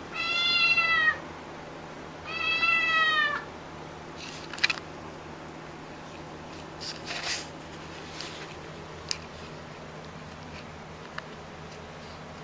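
Kitten meowing twice: two long, high, arching calls of about a second each, the second following a second after the first. A few faint light clicks and rustles follow.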